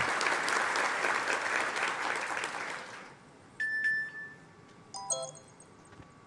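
Audience applause that fades away over the first three seconds, then a smartphone near the microphone sounding short chiming ringtone tones, one about three and a half seconds in and a cluster about five seconds in.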